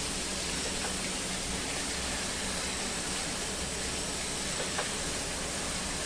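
Chicken pieces and masala sizzling steadily in oil in a pan while being stirred with a silicone spatula, with a few faint taps of the spatula against the pan.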